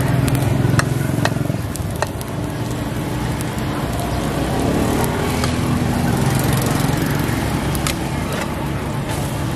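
Omelette frying in oil in a steel wok, sizzling over a steady low rumble, with a few sharp clicks of the metal spatula against the wok in the first two seconds and again near the end.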